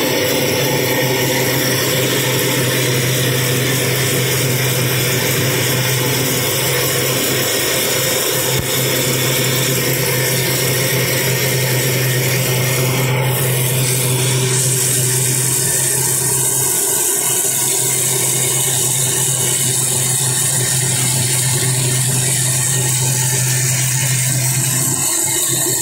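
Vertical steam engine running: a steady hiss with a low hum underneath, no clear beat, the hum stopping near the end.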